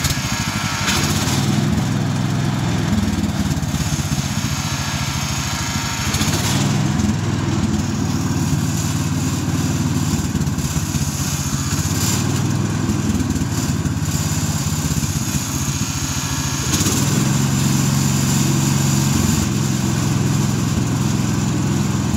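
Small gasoline engine running a homemade bandsaw mill, its speed stepping up and down a few times as the throttle is worked.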